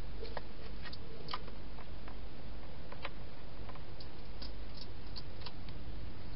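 A hedgehog crunching dry food inside a plastic feeding box: irregular sharp clicks at uneven intervals, over a steady hiss.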